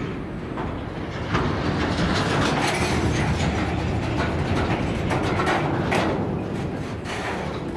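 Freight wagons of a braking freight train rolling slowly past on their cast three-piece bogies: a steady rumble of steel wheels on rail, broken by several sharp knocks and clanks.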